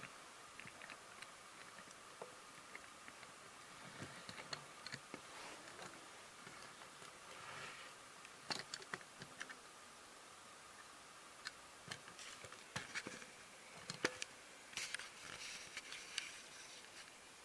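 Light, irregular clicks and rustles of a small diecast model vehicle being handled, with a sharper click about fourteen seconds in.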